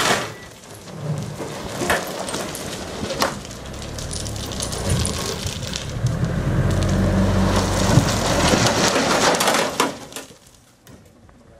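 Crushed stone pouring and rattling out of the raised tipper bed of a Mitsubishi Canter dump truck onto a dirt road, with many sharp clicks of falling stones and the truck's engine running underneath. The pour dies away about ten seconds in.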